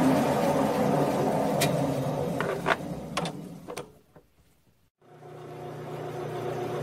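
Grizzly G9972Z metal lathe winding down, its motor and gear hum fading with a few sharp clicks as the spindle slows, until it stops about four seconds in. The lathe starts again about five seconds in and its hum rises as it comes up to speed.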